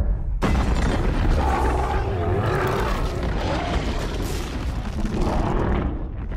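Film sound-effects mix of a blast: a sudden loud onset about half a second in, then continuous heavy rumbling of explosion and fire.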